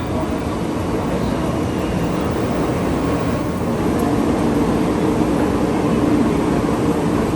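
Shinkansen train running noise: a steady rumble with a low hum that grows gradually louder.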